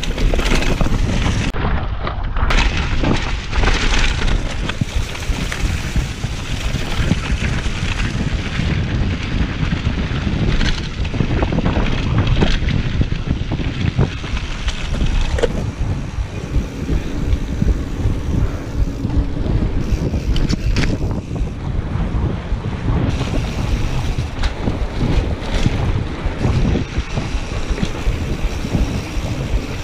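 Wind buffeting a handlebar-mounted action camera's microphone on a moving mountain bike. It makes a loud, steady rumble, with frequent knocks and rattles from the bike as it rolls over bumps.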